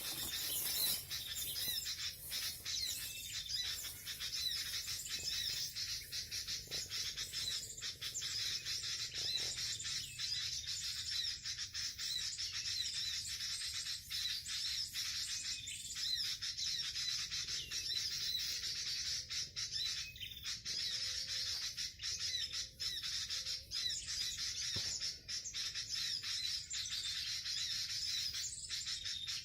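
Birds chirping and twittering in a steady, unbroken chorus of quick high-pitched calls.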